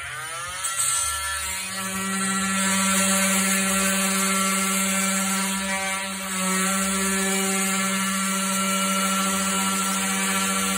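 Cordless oscillating multi-tool with a sharpened scraper blade, spinning up over the first second or so and then running with a steady buzzing hum as it cuts thick rubber stall mat. Its pitch and level sag briefly about six seconds in, then recover.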